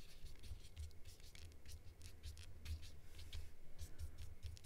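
A paintbrush's bristles dabbing and stroking wet alcohol ink on smooth synthetic polypropylene paper: faint, irregular scratchy strokes, several a second, over a low hum.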